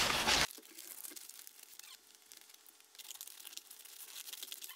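Brown kraft wrapping paper rustling and crinkling as it is handled over a box, loud for the first half second and then dropping suddenly to faint crinkles. Faint crackling snips of scissors cutting the paper near the end.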